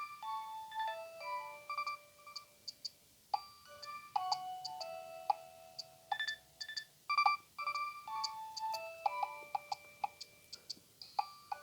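Nokia 3120 mobile phone playing a polyphonic ringtone: a quick electronic melody of short notes and chords over a clicking beat. It pauses briefly near the end and then carries on.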